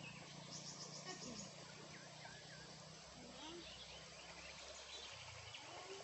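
Faint outdoor ambience: an insect trilling in the first second or so, scattered bird chirps, and a low steady hum that fades near the end.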